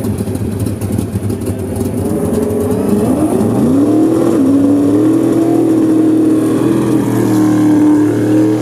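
Twin-turbo Fox-body Ford Mustang drag car's engine idling unevenly, then revved up at about three and a half seconds and held at steady high revs.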